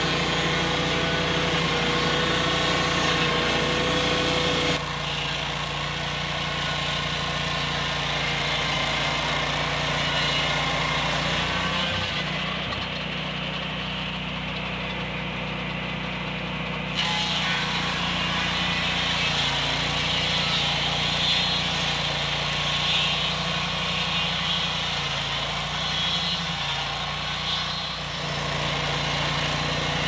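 Lucas Mill swing-blade portable sawmill running steadily, its engine driving the circular blade through a log lengthwise to flatten the top.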